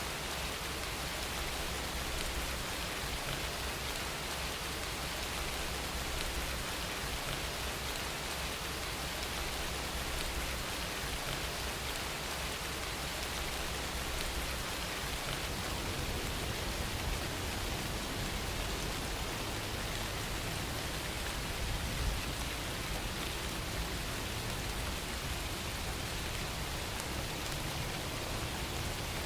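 Steady rain falling and pattering on surfaces, an even hiss with a faint low rumble underneath.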